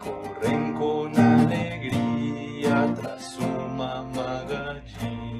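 Children's song: an acoustic guitar strummed in a steady rhythm under a sung verse.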